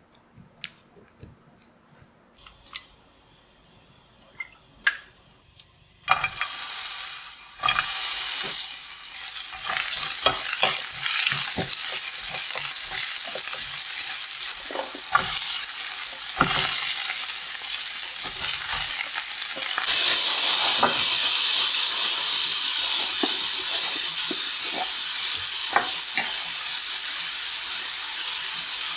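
A few faint clicks and taps, then about six seconds in food goes into a hot pan and starts sizzling loudly. It keeps frying while a utensil stirs, tapping and scraping against the pan, and the sizzle grows louder about twenty seconds in.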